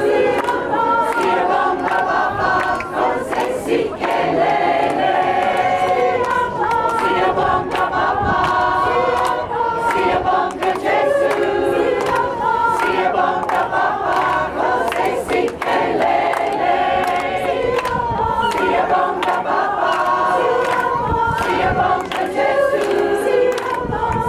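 Community choir of mixed, mostly women's voices singing together in harmony, without pause.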